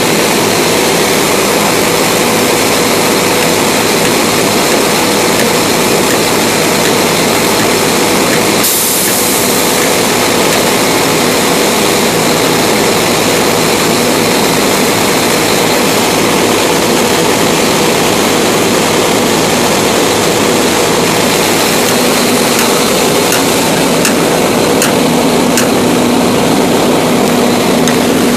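A fire engine's pump engine runs steadily at pumping speed, supplying the hose line: a loud, even roar with a steady hum. A second, lower hum joins in about 22 seconds in.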